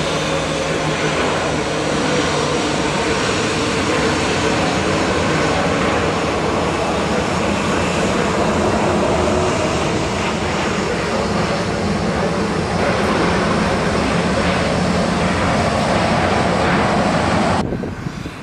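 Jet engines of a Boeing 737 airliner landing, a steady loud rumble with a faint whine through the approach, touchdown and rollout. The sound drops away suddenly near the end.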